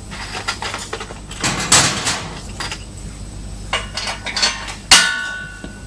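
Metal tools and bolts knocking and clinking against the steel frame of a roller heat transfer press during assembly, with a scrape about one and a half seconds in. Near the end comes one loud, sharp metal clink that rings briefly.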